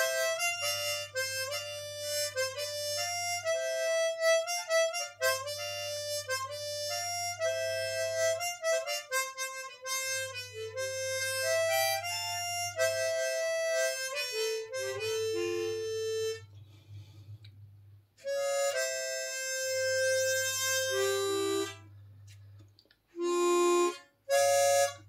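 Chromatic harmonica playing a simple song melody, one note at a time. It pauses briefly after about 16 seconds, resumes, and ends with a few short notes.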